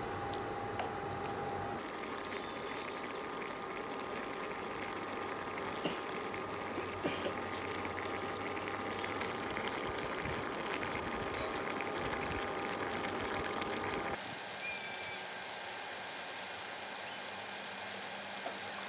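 Sugar syrup with sugar palm seeds and pineapple bubbling at a steady boil in a frying pan, with a couple of light clicks about six and seven seconds in. About fourteen seconds in the sound cuts abruptly to a slightly quieter boil.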